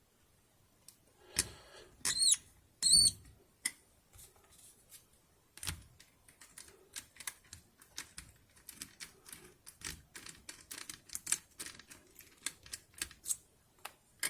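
Light clicking and knocking from an Abus 88/40 Plus disc detainer padlock and the lock-picking tool being handled. After a few separate knocks and two short squeaks, a quick irregular run of clicks, several a second, starts about halfway through.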